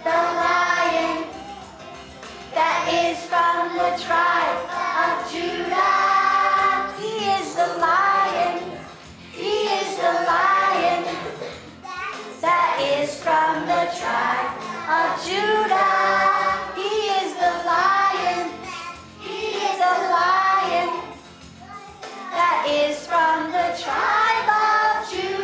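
A group of young children singing a song together in unison, in phrases with short dips between them.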